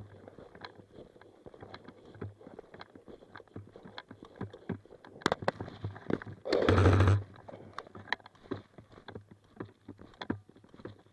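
Crackling and snapping of footsteps and gear moving through brush, with a short loud burst of airsoft rifle fire about six and a half seconds in.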